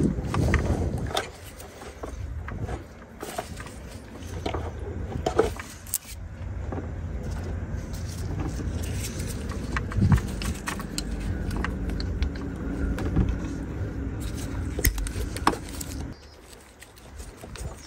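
Light clicks and rattles of hands working a plastic hose fitting and clamps in an engine bay, then a steady low rumble for about ten seconds with a few scattered clicks, cutting off shortly before the end.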